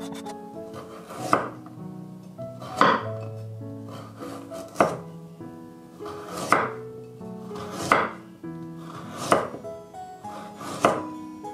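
Kitchen knife slicing a carrot into rounds on a wooden cutting board: seven sharp chops, about one every one and a half seconds, over background music.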